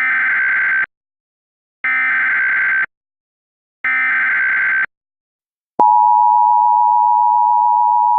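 Emergency Alert System SAME header: three one-second bursts of warbling data tone about a second apart, encoding a Civil Danger Warning. Just under six seconds in, the steady two-tone EAS attention signal starts and holds.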